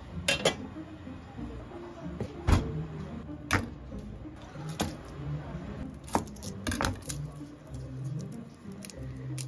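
Scattered clinks and knocks of kitchen handling, about a dozen separate sharp sounds: a metal lid set on a saucepan, then a knife and garlic cloves handled on a plastic cutting board.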